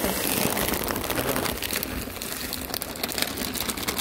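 A plastic snack bag of popcorn being tipped out and shaken: the bag crinkling over a dense, steady spatter of many small clicks as the popcorn pours out.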